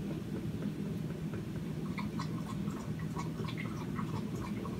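Dry-erase marker squeaking and scratching on a whiteboard in many short quick strokes as coil windings are drawn, most of it from about two seconds in, over a steady low hum.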